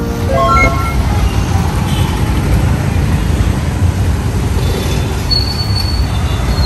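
Steady low rumble of vehicles on a busy road, with a brief thin high squeal about five seconds in and again near the end.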